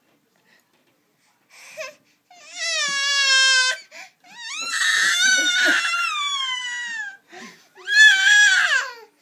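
Baby girl crying: after a couple of seconds of quiet, three high wails with short sobbing catches of breath between them, the middle wail the longest, each sliding down in pitch at its end.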